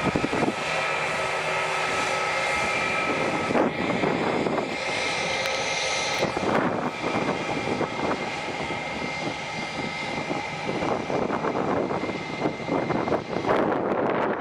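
Airplane engines running, with a steady high whine over a rushing noise that swells and fades.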